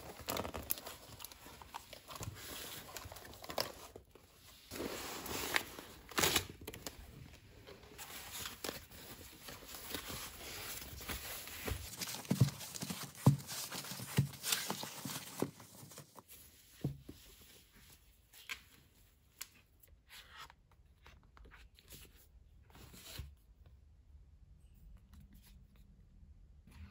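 Packing tape peeled off a cardboard box, then a foam wrapping sheet rustling and crinkling as a stack of manga is unwrapped, with a few soft knocks from handling the bundle partway through.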